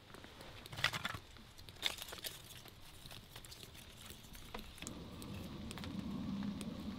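Split wooden kindling sticks knocking and clattering as they are laid over a small, freshly lit fire of wood shavings, with light crackling; the two sharpest knocks come about one and two seconds in. A low steady rumble sets in about five seconds in.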